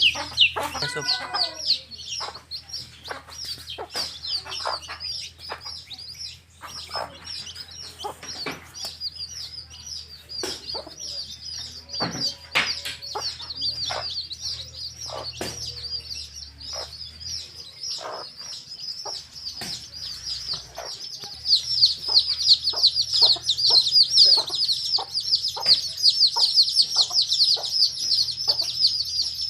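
A brood of baby chicks peeping continuously in short high falling chirps, with a hen clucking now and then. The peeping grows louder and denser about two-thirds of the way through.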